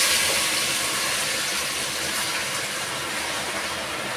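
Chicken breast pieces sizzling hard as they are tipped into a hot stainless-steel pot, the sizzle slowly dying down as the meat cools the pot.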